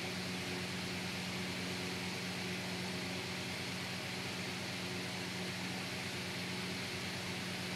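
Steady low hum with an even hiss underneath, unchanging throughout: room tone.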